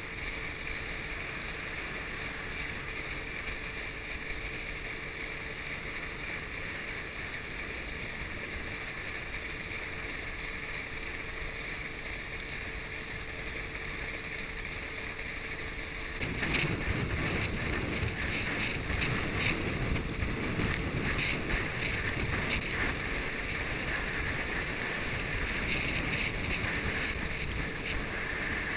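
Motorboat engine running steadily as it tows a water skier, mixed with rushing wind and water. About halfway through the rushing gets louder and rougher.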